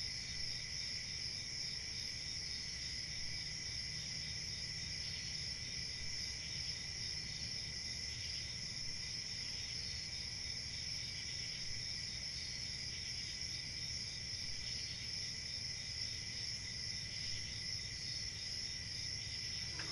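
Crickets chirring steadily at night, a continuous high-pitched trill that does not change.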